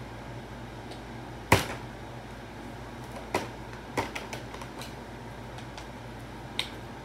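A partly filled plastic water bottle flipped and smacking down on a tile floor about a second and a half in, then a few lighter knocks and plastic clicks as it is picked up and handled. The flip fails, with the bottle landing on its side.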